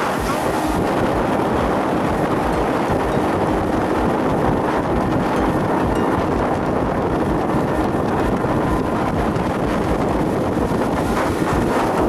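Pontoon boat under way at speed: its 115 hp outboard motor running steadily, with water rushing past and wind buffeting the microphone.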